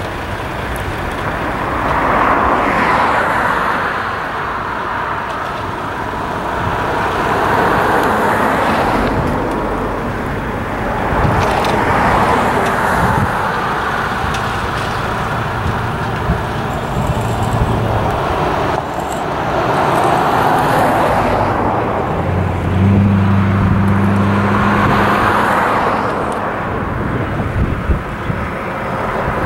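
Road traffic: a string of cars passing one after another, each rushing sound swelling and fading over a few seconds, about every five seconds. Late on, a steady low engine drone joins in for a few seconds.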